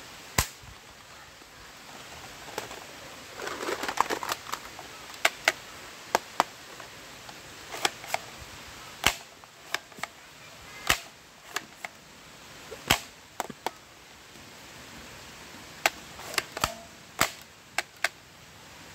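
Hard plastic toy guns being handled: sharp single clicks and clacks at uneven intervals, roughly one a second, with a brief clatter of plastic toys knocking together about four seconds in.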